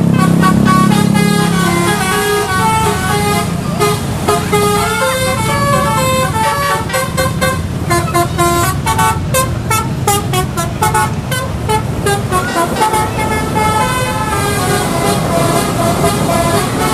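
KRL electric commuter train at a railway level crossing: a horn sounds near the start, then a fast run of wheel clacks over the rail joints as the train passes, about 7 to 12 seconds in, with short pitched tones going on throughout.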